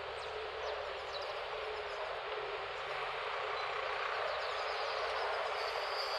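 Steady outdoor noise, an even hiss, with a few faint bird chirps.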